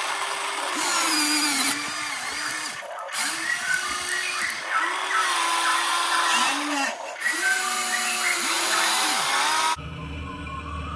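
Electric motor and hydraulic pump of a radio-controlled excavator whining, the pitch rising, holding and falling again several times as the machine works, over a steady hiss. About ten seconds in the sound cuts off suddenly and music takes over.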